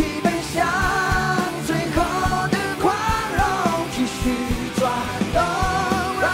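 Live rock band playing a song: a male lead voice singing in Mandarin over guitars and a steady drum beat.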